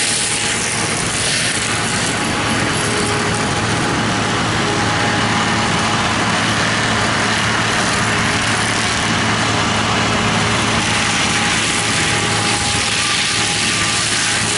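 Heavy excavator running steadily: a constant engine drone with a broad rushing noise over it, no letup.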